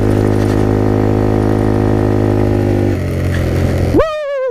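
Small motorcycle engine of a Motrac M5 supermoto running at a steady pitch while riding a rough dirt track, easing off about three seconds in. About four seconds in comes a loud cry from the rider as the bike goes over a big bump, rising fast and then falling with a shaky pitch.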